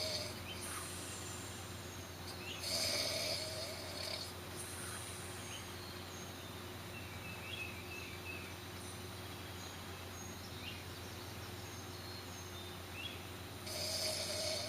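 A person snoring: long drawn-out snores, two close together at the start and one near the end, over a faint steady hum.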